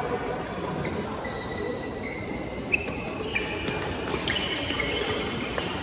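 Players' court shoes squeaking on a synthetic badminton court mat during a fast doubles rally, many short high squeaks, with sharp cracks of rackets striking the shuttlecock. There is a steady din of a busy badminton hall underneath.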